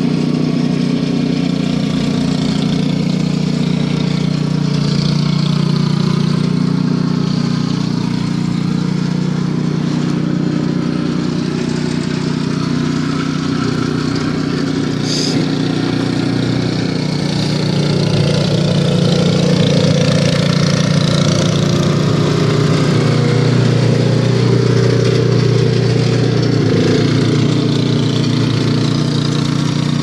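Remote-controlled two-stage snowblower's engine running steadily as the machine clears snow and throws it from the chute. It gets a little louder a little past the middle.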